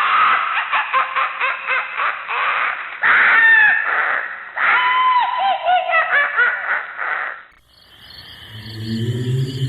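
Horror sound effect of high, chattering cries with gliding pitch, repeating in a loop. It fades out near the end and gives way to a low droning tone.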